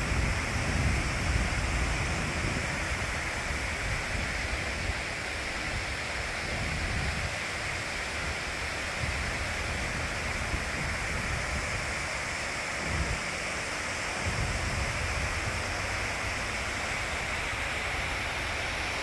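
Steady rush of water cascading down the walls of the 9/11 Memorial reflecting pool into the basin, with a low rumble underneath that comes and goes.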